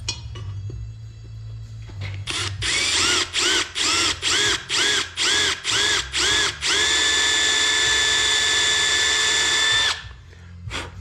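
Milwaukee M12 Fuel cordless drill drilling into a cast-iron cylinder head through a steel guide, making a pilot hole for a cold-stitching lock. It starts with about a dozen short trigger bursts, each motor whine rising and falling, then runs steadily for about three seconds and stops.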